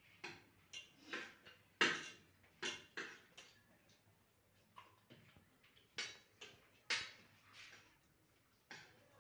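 Sounds of a meal being eaten at a table: about a dozen short, irregular clicks and smacks, the loudest about two seconds in.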